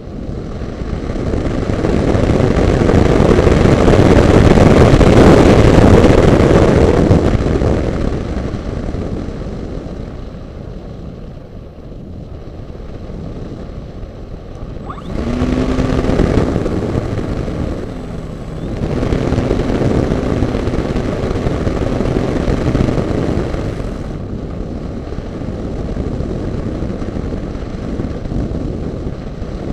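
Air rushing loudly over an onboard camera on a flying RC model glider, loudest a few seconds in. About halfway through, the model's motor and propeller come on with a steady hum that rises briefly at the start. It stops for a moment, runs again for several seconds and then cuts out, leaving only the wind.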